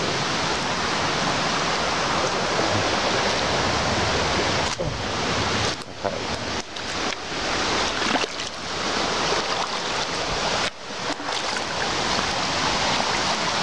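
Shallow river water rushing over rocks in a riffle, a steady dense rush that dips briefly a few times.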